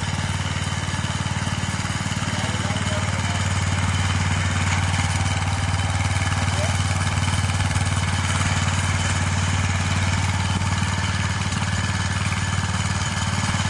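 Small Wheel Horse garden tractor's engine running steadily as the tractor drives along, a low even hum with no change in speed.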